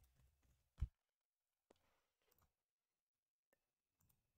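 Near silence broken by one sharp click a little under a second in and a fainter click shortly after: computer input clicks while entering a search.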